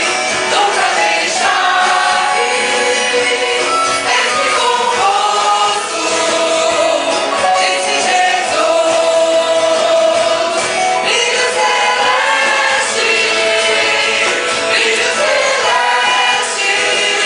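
Christian gospel song with a choir of voices singing over instrumental backing.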